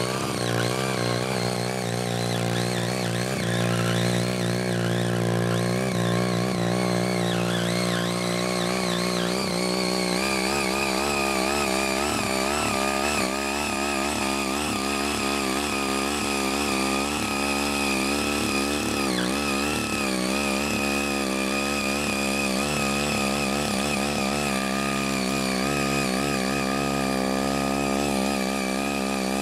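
Ching Yee CY80 mini cultivator's small engine running under load while its eight rotary tines till soil. The engine note wavers up and down throughout.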